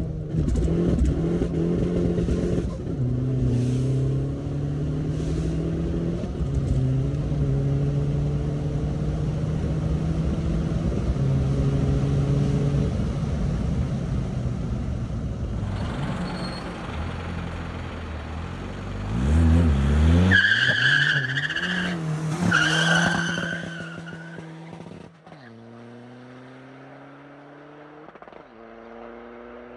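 Big-turbo Skoda Fabia 1.9 TDI four-cylinder diesel heard from inside the cabin, accelerating hard through the gears. Its pitch climbs and drops back at each shift, and a high steady whistle rises over it for a few seconds past the middle. Near the end the sound is quieter and farther off: the car accelerating away with another gear change.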